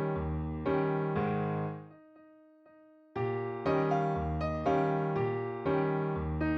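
Background music on electric piano: chords struck about every half second, with a brief pause about two seconds in before the chords resume.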